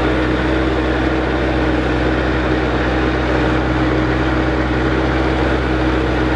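A motor running steadily at constant speed, with an even hum and drone that cuts off abruptly at the end.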